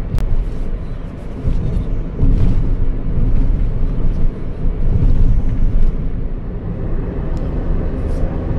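Nissan Roox kei car driving at cruising speed: steady, low, rough road and wind noise with the engine underneath, growing louder about two seconds in.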